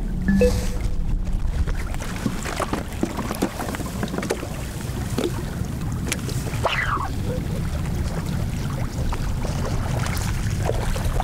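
Strong wind buffeting the microphone, a steady low rumble, with small waves lapping at the lakeshore and a few light clicks.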